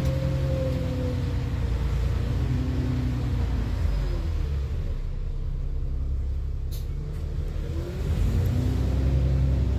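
Alexander Dennis Enviro 400 double-decker bus's diesel engine and drivetrain heard from inside the passenger saloon while driving, a steady drone with pitched tones that fall and rise. It eases a little in the middle, then grows louder with rising tones about eight seconds in as the bus accelerates again. A single short click comes near the seven-second mark.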